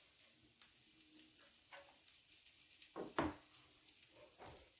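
Sauce sizzling faintly in a pan, with a few light knocks and scrapes of a spoon against the pan as it is stirred, the loudest about three seconds in.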